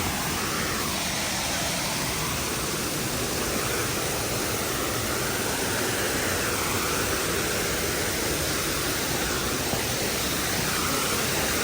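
Steady rushing roar of a waterfall close by, an even wash of falling water.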